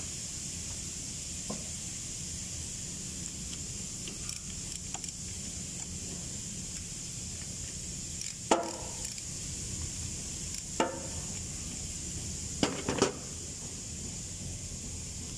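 Metal hand tools clinking against metal while a mechanic works on a battery connection and fuse nut. Four sharp clinks with a brief ring stand out over a steady background hum: one a little past halfway, another about two seconds later, then two close together near the end.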